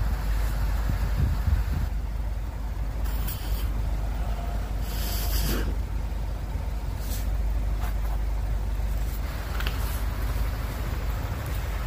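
Road traffic running past, a steady low engine rumble, with a short sharp hiss about five seconds in.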